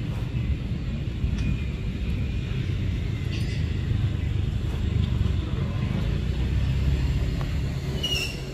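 Outdoor field recording: a steady low rumble, with faint high chirps scattered through it and a short, brighter chirp near the end.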